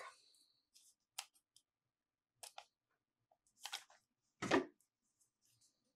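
Scattered small clicks, crinkles and scrapes of wrapped tarot and oracle card boxes being opened by hand, with one louder thump about four and a half seconds in.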